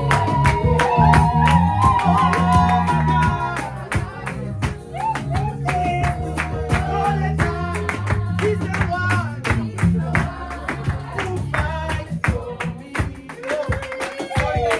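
Background music with a steady beat, a bass line and a sung melody.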